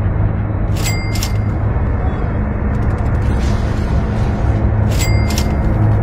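Ominous background score: a steady low rumbling drone, with two sharp double clicks about a second in and about five seconds in.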